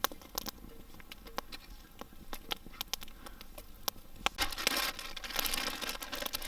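Cooking over an open fire while ingredients are handled at the pot: scattered sharp clicks and crackles, with a longer rustling hiss about four and a half seconds in.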